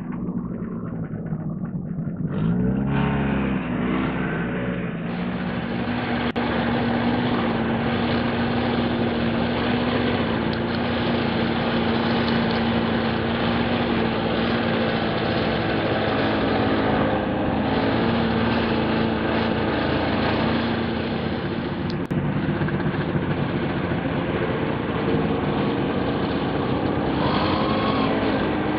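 Snowmobile engine revving up about three seconds in, then running at a steady pitch, with another brief rise in pitch near the end.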